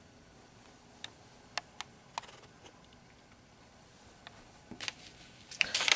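Faint handling of a paper flyer: a few scattered light ticks, then a cluster of louder taps and rustles near the end.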